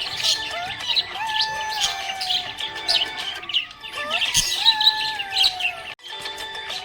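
A group of small pet parrots chirping rapidly and continuously over background music with long held notes. The sound cuts out abruptly for an instant near the end.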